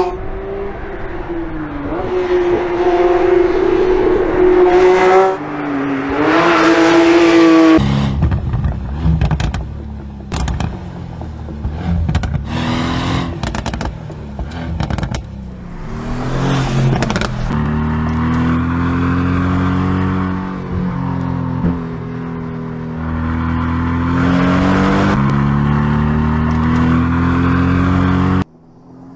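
Sports car engines at high revs on a track, the Porsche 911 GT3 and the Mercedes-AMG GT R. For the first eight seconds a high engine note rises and falls through gear changes. Then comes a deeper, rougher exhaust note, and from about 18 seconds in a long steady pull that cuts off just before the end.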